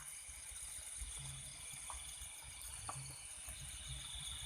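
Night chorus of crickets and other insects, a steady high pulsing trill, with faint low thumps underneath and a couple of soft clicks.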